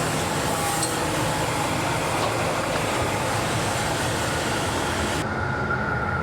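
Portable band sawmill running under power, its engine droning steadily beneath a broad hiss from the blade working the walnut log. About five seconds in the higher hiss cuts off abruptly, leaving the engine drone and a steady whine.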